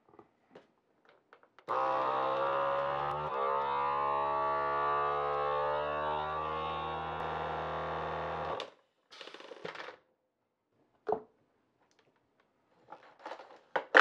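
FoodSaver vacuum sealer pump running through its accessory hose, drawing the air out of a vacuum food container: a steady hum for about seven seconds, its note shifting slightly a couple of seconds in, then cutting off. A few short clicks and knocks follow as the hose is handled.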